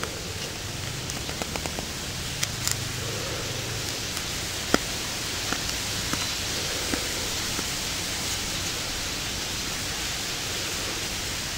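Small knife blade cutting and scraping into a wooden bow-drill fireboard to carve the notch: a few light clicks and scrapes, the sharpest about five seconds in, over a steady hiss.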